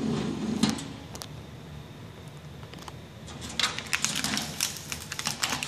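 A paper sticker being picked and peeled off a grill's metal lid, crinkling and crackling, with a run of quick rustles and ticks that starts about three and a half seconds in.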